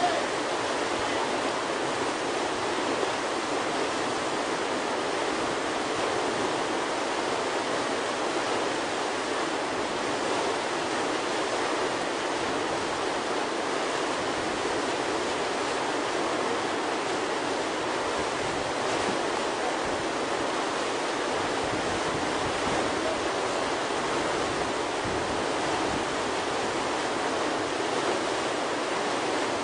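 Steady rushing of whitewater pouring through a river play hole, an even, unbroken noise.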